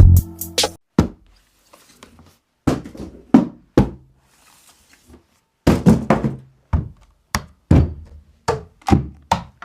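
Sparse percussion hits from a song played back through a soundbar: single heavy knocks and thumps split by silent gaps of about a second and a half, then a quicker run of hits from about six seconds in.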